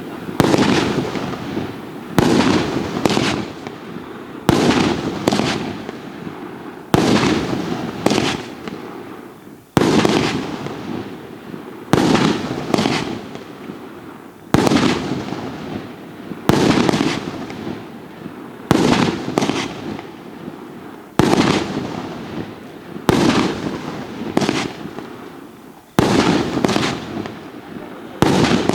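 A 36 mm, 20-shot fireworks cake firing shot after shot, about one every two seconds. Each shot is a sharp bang that dies away, often followed closely by a second crack.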